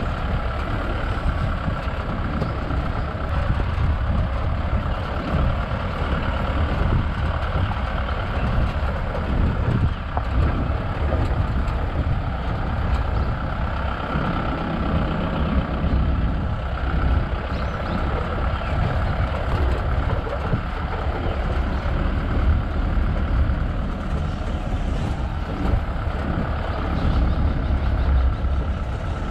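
Safari vehicle's engine running steadily as it drives, a constant low rumble.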